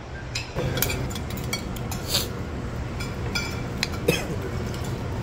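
Metal spoons clinking and scraping on plates of koshary, with sharp clinks every second or so over a steady low room hum.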